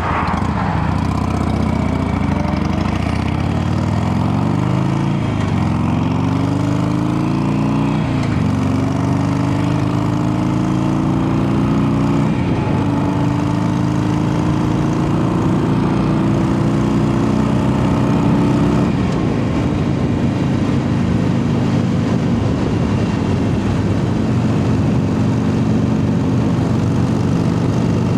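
Harley-Davidson Sportster 883's air-cooled V-twin under way, accelerating through the gears: the engine note climbs in pitch in each gear and drops at a few gear changes, then settles into a steady cruise for the last third.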